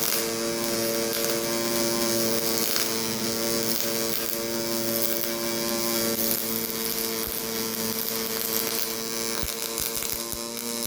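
Pulse MIG welding arc from an HTP Pro Pulse welder: a steady, even buzz with a crackling hiss over it.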